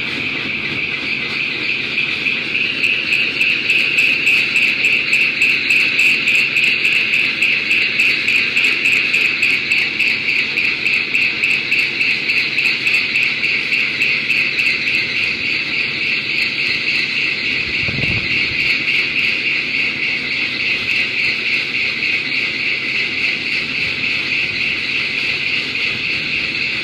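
Excavator-mounted hydraulic circular saw cutting into quarry stone: a loud, steady high-pitched grinding screech that pulses several times a second. A brief low thump comes about 18 seconds in.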